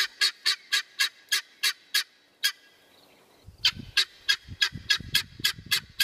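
Helmeted guineafowl giving a rapid series of short, harsh, repeated calls, about four a second, with a pause of about a second midway before the calling resumes. A low rumble runs under the later calls.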